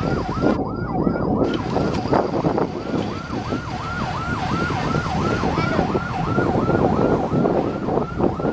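A yelp siren going up and down in pitch very fast, about three cycles a second, over the low rumble of heavy truck engines.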